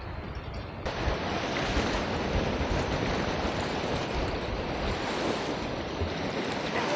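Sea surf washing onto a sandy beach: a steady rush of waves that grows fuller and a little louder about a second in.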